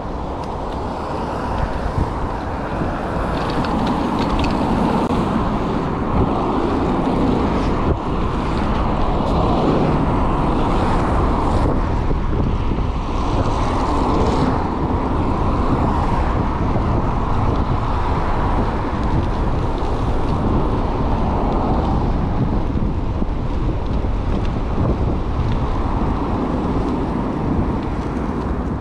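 Wind rushing over the microphone with a rumble of riding from an electric mountain bike going off-road, growing louder a few seconds in and then holding steady.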